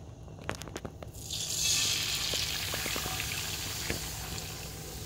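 Beaten egg-and-milk mixture poured into a hot oiled frying pan: after a few light clicks, a sudden sizzle sets in about a second in and slowly dies down as the liquid spreads.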